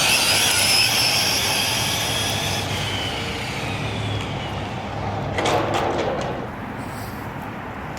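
Electric RC short-course truck running at speed: a high whine from its motor and drivetrain holds for a couple of seconds, then fades as the truck moves away. A short rush of noise follows about five and a half seconds in.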